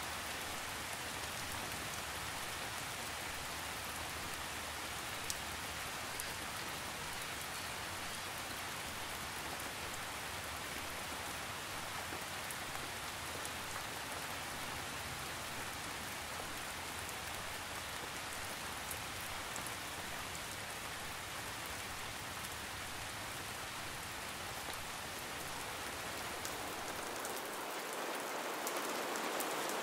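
Gentle rain falling steadily: an even hiss of many drops on surfaces. It grows a little louder near the end.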